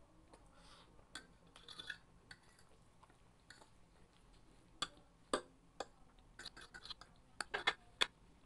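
A metal fork clinking and scraping against a plate as palabok noodles are gathered up, with a run of sharp clicks in the second half. Softer chewing sounds come in the first couple of seconds.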